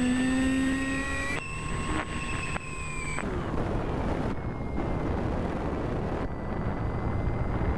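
Brushless electric motor and propeller of an RC foam plane (a Bixler) heard through its onboard camera: a steady whine that shifts pitch a few times, then gives way a little after three seconds to wind rush over the microphone with a faint high whine underneath.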